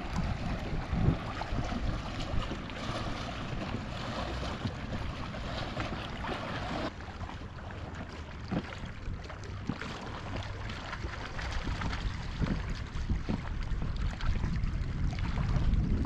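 Wind buffeting the microphone over small lake waves lapping against a boat, a steady low rumble and rush that drops a little about seven seconds in.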